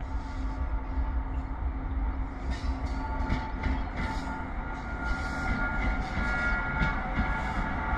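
WAG9HC electric locomotive rolling in with a freight train: a low rumble with scattered wheel clacks, and a steady whine of several high tones that sets in about three seconds in and grows stronger. This is the locomotive's weird sound.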